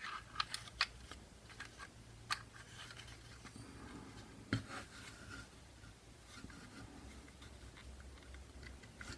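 Small parts being handled and fitted into an airsoft gun's lower receiver while the trigger and its spring are set in place: a quick cluster of sharp clicks in the first second, then single clicks about two and a half and about four and a half seconds in, with faint rustling handling in between.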